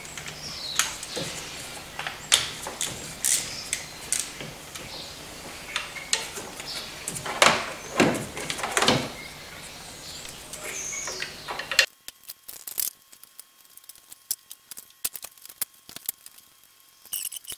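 Socket wrench with a 10 mm deep socket loosening the glow plugs of a Ford 1.8 TDCi diesel engine: scattered metallic clicks, knocks and scrapes of the tools. A steady low background hum stops suddenly about twelve seconds in, after which the clicks come quicker and sharper.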